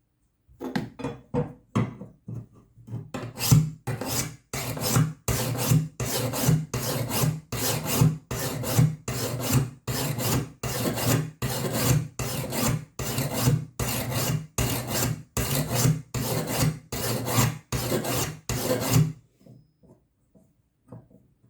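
Hand sharpening stone stroked over and over along the steel edge of a lawnmower blade, a scraping rasp about twice a second, stopping near the end.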